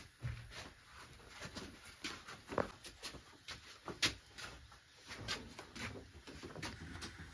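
Scattered light knocks, taps and clicks of things being handled and moved about, with two sharper knocks about two and a half and four seconds in.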